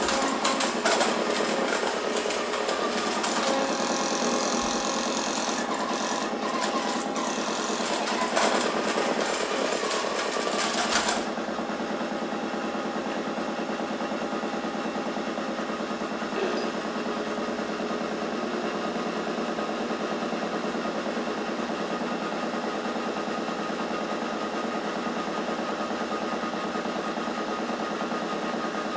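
Amplified buzzing and whirring of battery toy train motors played through loudspeakers as a dense, steady drone. A harsher, hissier layer cuts off suddenly about eleven seconds in, leaving a steadier hum.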